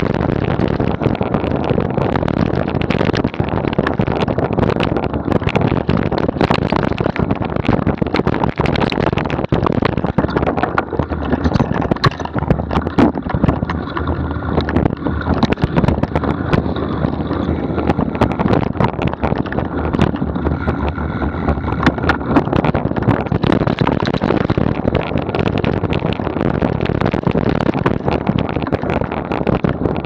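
Mountain bike riding over a rough dirt trail, with a steady clatter of small knocks and rattles from the bike and camera mount over bumps, and wind rushing across the camera microphone.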